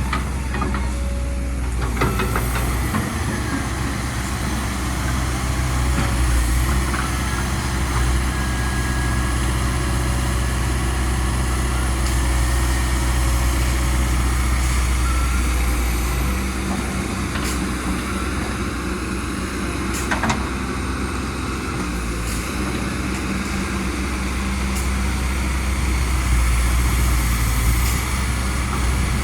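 Kobelco SK200 hydraulic excavator running steadily as it digs and loads soil: a low diesel drone that shifts in pitch a few times as the load changes, with a faint high whine and a few sharp knocks.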